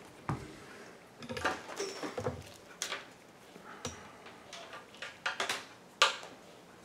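Scattered clicks and knocks as a Fluke 87 digital multimeter is handled, switched on at its rotary dial and set down on the workbench, with the sharpest knock about six seconds in.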